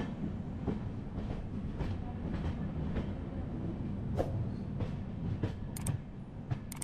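Passenger train running along the track: a steady low rumble with irregular clicks and knocks from the wheels on the rails.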